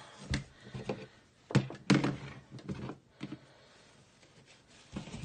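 A few dull knocks and bumps as a doll's plush body and vinyl parts are handled and set down on a tabletop, with light fabric rustling. Most of the knocks come in the first three seconds, with one more near the end.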